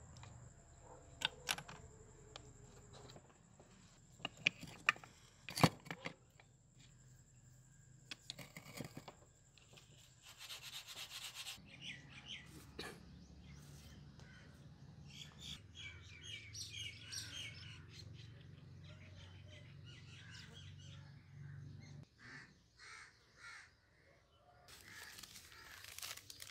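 Gears and small metal parts being handled on a motorcycle engine's gearbox shafts, with several sharp metal clicks, the loudest about six seconds in. Later birds chirp in the background over a low steady hum, and near the end powdered detergent pours into water with a hiss.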